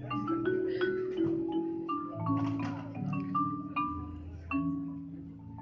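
Marimba played with two yarn mallets: a melody of struck wooden-bar notes, two or three a second, over low notes that ring on under them.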